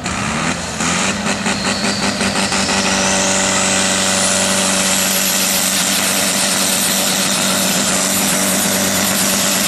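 Pulling tractor's diesel engine revving up at the start line. The revs come in surges for the first couple of seconds, then hold high and steady, with a high whine rising in pitch and settling.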